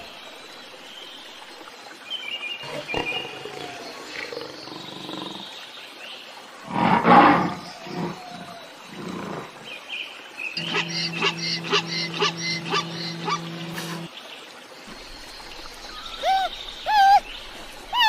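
A run of different wild-animal calls: a loud roar-like call about seven seconds in, a pulsing call over a steady droning tone from about ten to fourteen seconds, and repeated rising-and-falling calls near the end.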